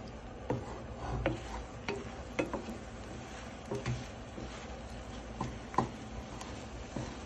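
Wooden spatula knocking and scraping against a frying pan while stirring scrambled eggs and sliced hot dogs, with irregular taps about once a second.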